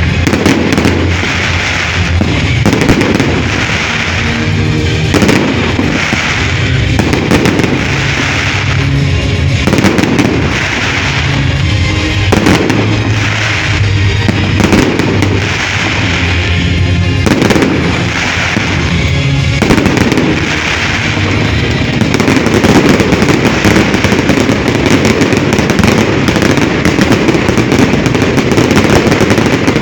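Fireworks going off in rapid bangs and crackles over loud music. The bursts grow louder and denser about two-thirds of the way through.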